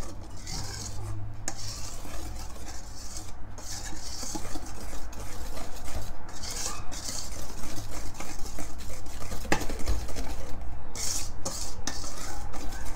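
Wire balloon whisk stirring flour and cocoa powder into brownie batter in a stainless steel bowl: steady, rapid scraping and tapping of the wires against the metal bowl.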